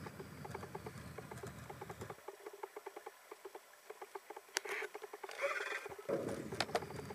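RC model crab boat running, with a rapid, even ticking over a low hum. The hum drops away about two seconds in and comes back about six seconds in, and a couple of short hissy bursts and clicks fall in between.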